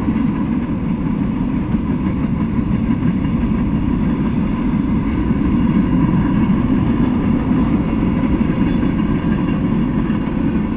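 Freight train cars rolling past on the tracks: a steady, continuous low rumble of steel wheels on rail.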